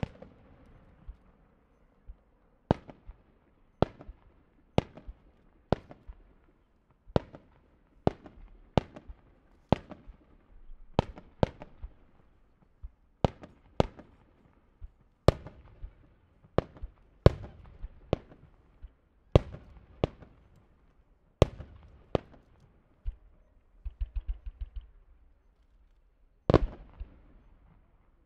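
Japanese aerial firework shells bursting one after another in a star mine, a sharp bang about every second. About three-quarters of the way through there is a quick run of crackling pops, then one heavier boom near the end.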